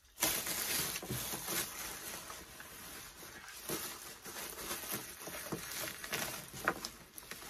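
Clear plastic bag around a heat press crinkling and rustling as it is handled and pulled at, with many small irregular crackles.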